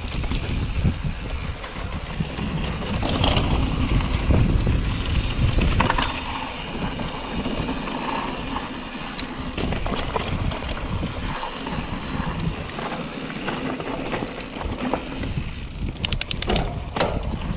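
Mountain bike riding over a rocky dirt trail: tyres rolling over loose dirt and stones, the bike rattling with many short knocks over bumps, and wind rumbling on the action-camera microphone.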